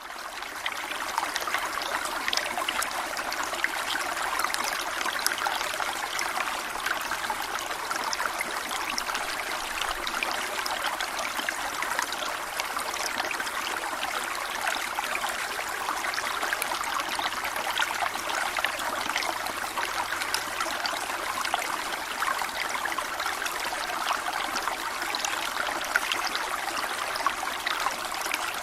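Waterfall: water falling and splashing in a steady rush with no pauses, fading up from silence at the very start.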